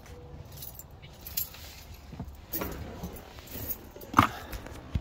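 Keys jangling as a hand rummages in a truck's centre-console cupholder, with scattered clicks and knocks; the sharpest knock comes a little after four seconds in.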